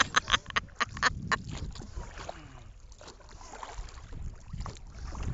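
A woman laughing hard in quick bursts for about the first second and a half. After that comes a low rumble of wind and water around the moving kayak.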